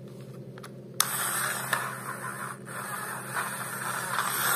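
Small electric motor and gears of a battery-powered toy train whirring, switched on suddenly about a second in and getting louder near the end. The toy runs off a Nokia phone battery fitted in place of its two AA cells.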